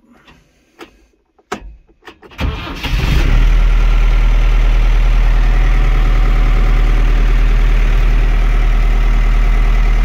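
A few clicks, then the New Holland 4835 tractor's diesel engine is cranked by the starter, catches about three seconds in, and settles into a steady idle.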